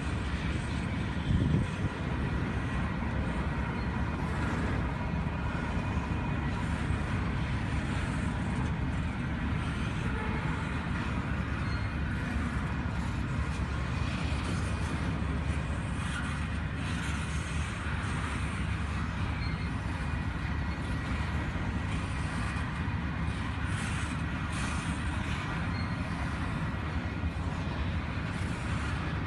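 Freight train rolling past at a railroad crossing: a steady, loud rumble and clatter of the cars on the rails, with one brief louder knock about a second and a half in.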